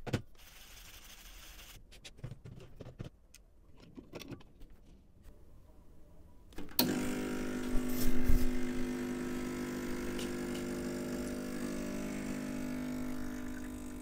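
The MiiCoffee Apex espresso machine's pump starts suddenly about halfway through and runs with a steady hum, pulling an espresso shot through the coffee puck.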